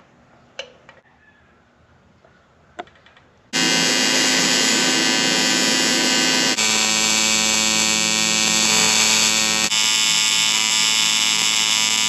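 A few light clicks, then an AC TIG welding arc on aluminum comes on abruptly as a loud, steady buzz. Its tone shifts twice before it cuts off.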